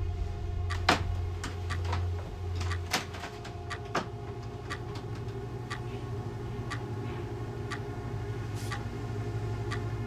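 Film sound-design ambience: a steady low hum with several held tones, over which sharp ticks and clicks fall irregularly, about one or two a second. The deepest part of the hum drops away about three seconds in.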